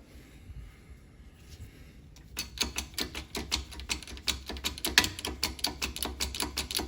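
A press being worked to push a bearing retaining ring onto an axle shaft. About two and a half seconds in, a fast, irregular run of sharp clicks starts, several a second.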